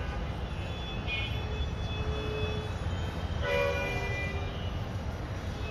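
Steady low background rumble with horns tooting a few times, the longest and loudest about three and a half seconds in.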